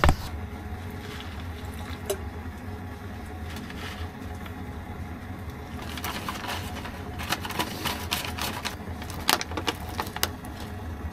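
Foil ration pouch being handled, crinkled and torn open: a string of crackles and rustles, thickest from about six seconds in, over a low steady hum.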